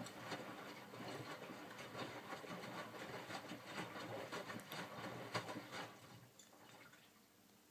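Miele W562 front-loading washing machine's drum turning during the first rinse, wet cotton bedding sloshing and tumbling in the rinse water; the drum stops about six seconds in.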